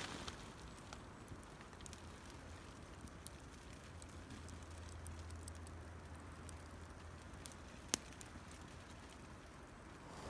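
Small campfire of dry branches crackling faintly, with scattered small pops and one sharper pop about eight seconds in.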